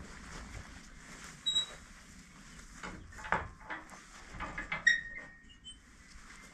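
Metal gate being opened and swung shut. Several knocks and scuffs lead to a sharp metallic clank about five seconds in, which rings briefly.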